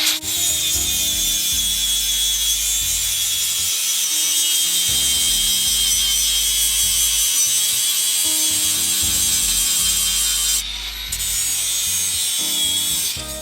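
Cordless angle grinder sharpening a steel lawn mower blade: a steady, loud, high-pitched grinding whine, with a short break about eleven seconds in, that cuts off at the end. Background music plays underneath.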